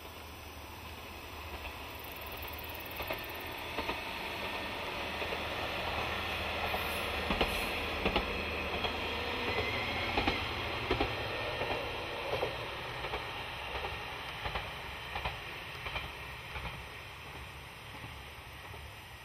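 Akita Nairiku Railway AN-8900 diesel railcar running past, its wheels clacking over rail joints in a regular beat. The sound swells as it passes and fades as it draws away.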